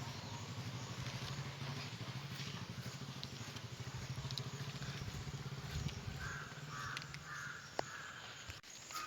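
A crow cawing several times in quick succession about two-thirds of the way in, over the steady low hum of an engine running.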